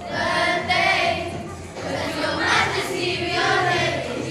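A group of children singing together with music.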